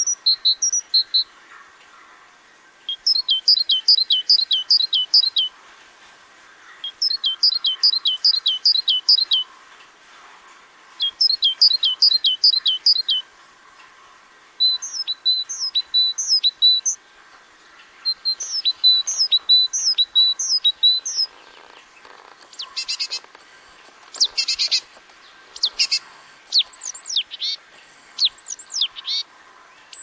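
Small songbirds calling. One repeats a song of about eight quick, high, falling notes, each phrase two to three seconds long, several times over. In the last third come harsh, rasping chatter calls.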